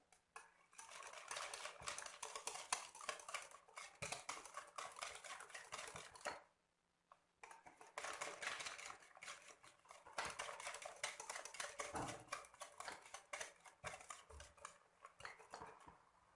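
A utensil beating rapidly against a mixing bowl as cake batter is mixed by hand with oil being added. The clatter stops briefly about six and a half seconds in, then resumes.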